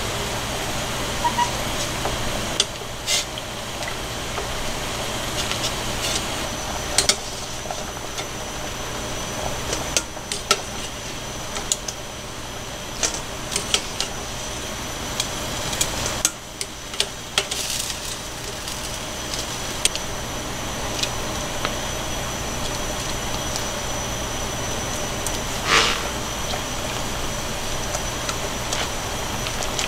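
A stainless stockpot of water boiling on a gas stove, a steady rushing, with scattered sharp clicks and taps as a ladle and wooden chopsticks knock against the pot while the chicken pieces are stirred. One tap about 26 seconds in is the loudest.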